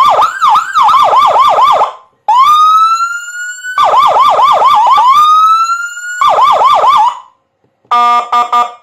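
Electronic siren played through a Whelen HF100 100-watt siren speaker, switching between tones. A fast yelp of about four sweeps a second alternates with slower rising wail sweeps. After a brief silence near the end comes a pulsed horn tone in a few short blasts.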